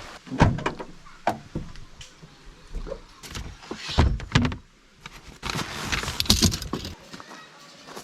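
Camping gear being handled: a series of thumps with metallic rattling, the loudest about half a second and four seconds in.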